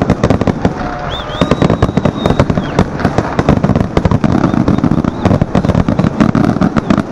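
Aerial fireworks bursting overhead: a rapid, continuous string of sharp bangs and crackles from many shells going off at once. A brief high whistle sounds about a second in.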